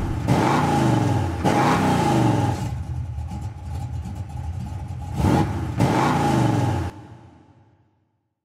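Motocross bike engine revved hard several times, the pitch dropping away after each blip, then fading out near the end.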